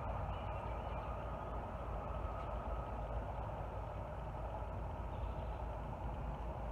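Steady low outdoor background rumble, like a distant engine or machinery hum, with a faint thin steady tone above it.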